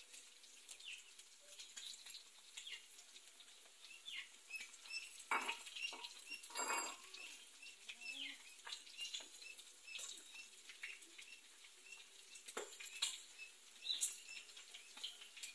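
Faint, irregular crackling and rustling of dried chiles toasting on a comal as they are pressed flat and turned by hand, with a couple of louder crackles about five and six-and-a-half seconds in.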